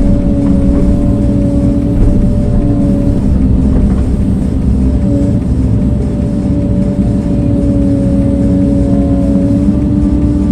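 A heavy earthmoving machine's engine running steadily under load while its blade works sand. It is a loud, continuous rumble with a steady drone.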